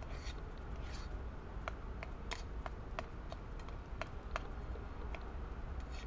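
Metal spoon stirring in a small metal camping pot: irregular light clinks against the pot, with two brief scrapes in the first second.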